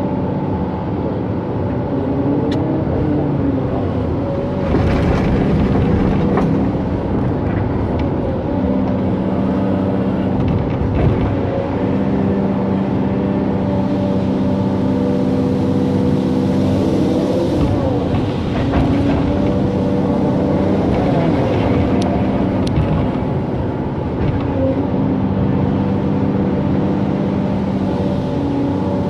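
Excavator's diesel engine running under working load, a steady drone whose pitch steps up and down every few seconds, with a few rougher, noisier spells.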